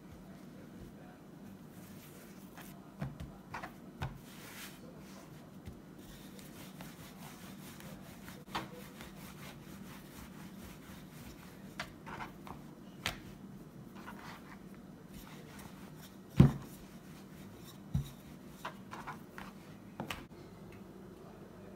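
Hands pressing and patting out naan dough, then a wooden rolling pin rolling it on a plastic board: soft rubbing with scattered light knocks, the loudest about two-thirds of the way through.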